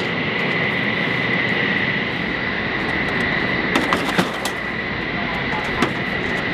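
Metal ammunition cans knocking against a pickup truck's bed as they are loaded, a quick cluster of sharp clanks about four seconds in and one more near the end. Under them runs a steady mechanical drone with a constant high whine.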